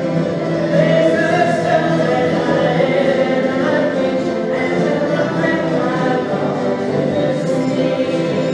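Folk song circle: many voices singing together to strummed acoustic guitars.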